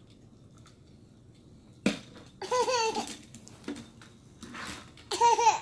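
A toddler laughing in two short, high-pitched bursts, the second near the end, after a single sharp knock about two seconds in.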